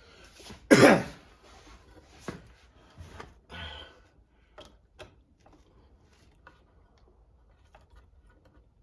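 Small parts and tools being handled during an RC car wheelie bar install. A loud, short pitched sound about a second in, then scattered light clicks and rustles that thin out.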